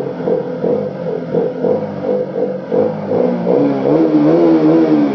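KTM RC 200's single-cylinder engine revved in neutral: a few quick throttle blips, then the revs climb and hold at their loudest about four seconds in before dropping back near the end.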